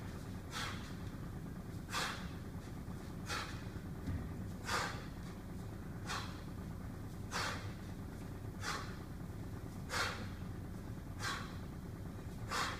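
Sharp, forceful breaths from a man doing one-arm cleans with a 32 kg kettlebell, one short breath with each rep, about every 1.3 seconds, over a steady low hum.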